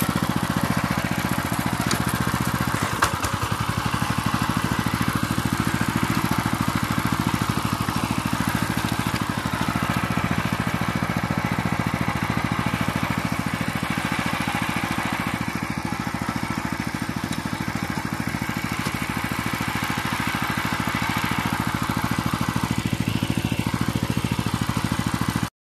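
Krotof WG522 walk-behind tractor's petrol engine running steadily under load as it pulls a rider on a homemade wheeled adapter.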